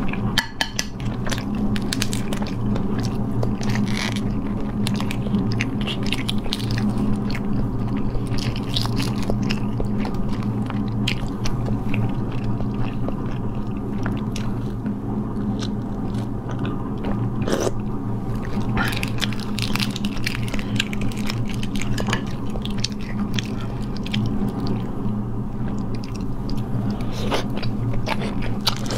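Close-up eating sounds: boiled huozhuzi (developing eggs) being cracked and peeled by hand, with biting and chewing, a scatter of sharp shell clicks and crunches over a steady low hum.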